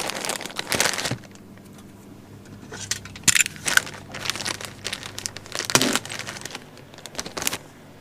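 Small clear plastic parts bags crinkling and rustling as they are handled and opened, in irregular bursts with a quieter gap of about a second and a half after the first second.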